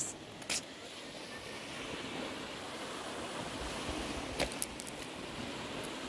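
Small waves on a calm sea washing onto a pebble beach: a steady surf hiss that swells a little, with a couple of sharp clicks about four and a half seconds in.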